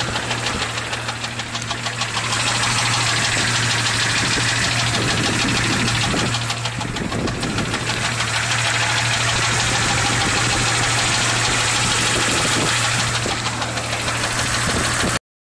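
Jeep Cherokee XJ 4.0L inline-six engine running with a fast, steady knock from the engine, which the owner says is loudest near the rear driver's side and has not been found to be an exhaust leak. It cuts off near the end.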